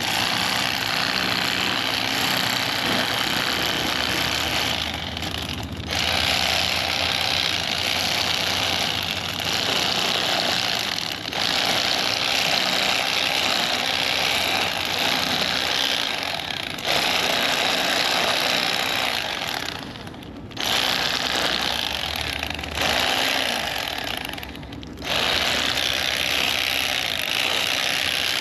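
Electric fillet knife running in long bursts while fish are filleted, with a steady buzz that stops briefly about five times as the trigger is let go.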